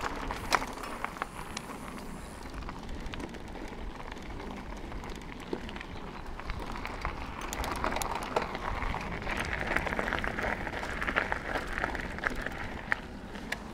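Mountain bike rolling over a loose gravel track: tyre crunch and rattle with many sharp clicks and knocks from the bike, busier and louder in the second half.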